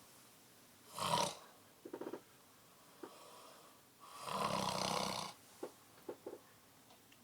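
Someone snoring: a short snort about a second in, a brief fluttering rattle just after, then one longer, louder snore with a low buzz about four seconds in, followed by a few small clicks.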